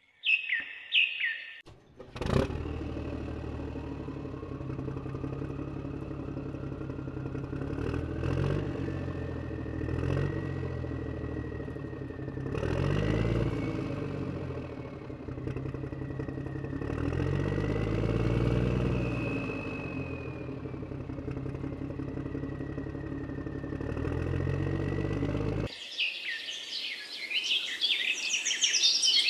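A motor starts suddenly and runs steadily, its high whine climbing as it speeds up. Its pitch then rises and falls several times before it cuts off abruptly near the end. Birds chirp briefly at the start and again after it stops.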